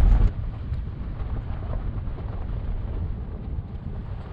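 Low, steady rumble of a Tesla Model 3 Performance rolling slowly over a rough dirt trail: tyre and suspension noise with no engine sound, since the car is electric.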